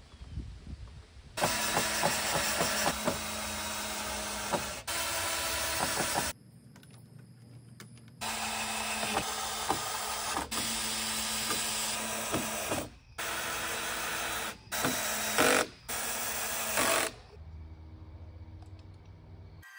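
Power drill running in several steady bursts of a few seconds each, fastening the wooden floor frame. Each burst starts and stops abruptly, with a quieter gap in the middle and near the end.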